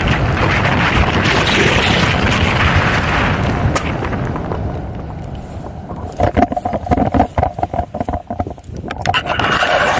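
Paramotor in low flight: wind rushing over the microphone with the motor running, dying away about four seconds in as it slows to land. From about six seconds, a run of uneven thuds and rustles as the pilot lands on foot.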